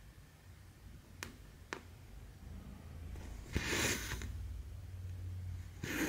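Cross-stitch needle and cotton thread working through the fabric: two light clicks, then about halfway through a short rasping swish of thread drawn through the cloth, and another swish at the very end. A low steady hum runs underneath.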